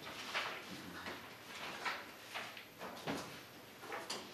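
Faint paper handling at a table: sheets being leafed through and shuffled, a series of short rustles and soft knocks about every half second to second.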